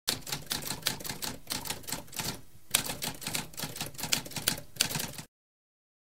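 Typewriter typing: a rapid run of keystrokes with a short break about halfway through, stopping abruptly near the end.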